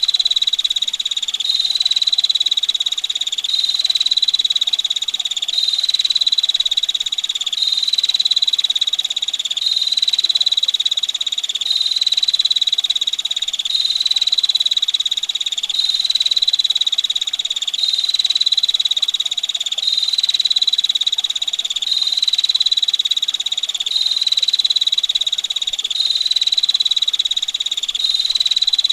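Small songbird giving a continuous, rapid rattling trill pitched high at about 4 kHz, repeated in phrases about two seconds long with barely a pause between them.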